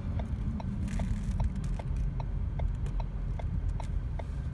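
Car turn-signal indicator ticking evenly, about two and a half ticks a second, over the low rumble of the engine and road inside the cabin.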